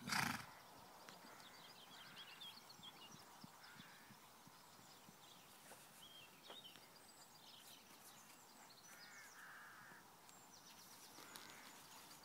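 Faint outdoor ambience with small birds singing: repeated high trills and chirps throughout. A short loud bump on the microphone comes right at the start.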